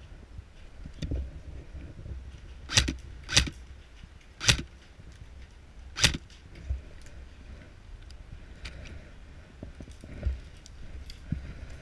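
Four sharp single shots from an airsoft electric rifle, fired one at a time at uneven spacing, with rustling and handling of gear between them.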